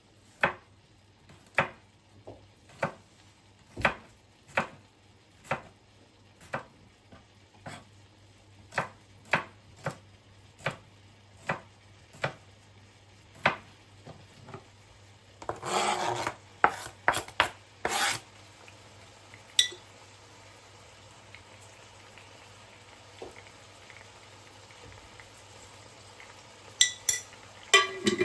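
Knife chopping on a cutting board, one to two even strokes a second, slowing a little. About halfway through comes a scraping rustle lasting about two seconds, then only a few scattered knocks near the end.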